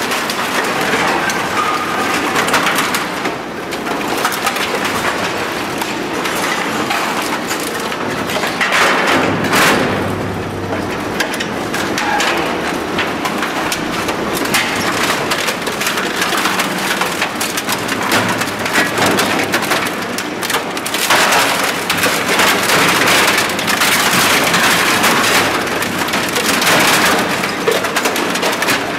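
Komar EM-40G auger compactor's screw auger crushing wooden pallet slats and exercise equipment: a steady, dense crackle of splintering wood and breaking plastic and metal, full of sharp snaps.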